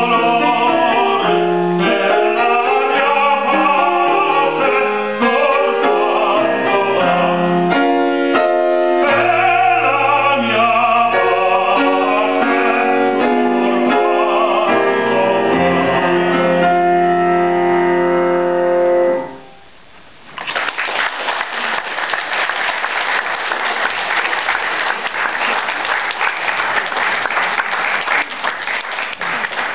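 Operatic tenor singing with grand piano accompaniment, ending on long held notes about two-thirds of the way through. After a brief pause, the audience applauds steadily to the end.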